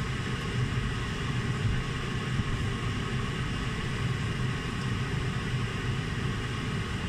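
Empanadas deep-frying in hot oil in a wok: a steady sizzle over a low, even hum.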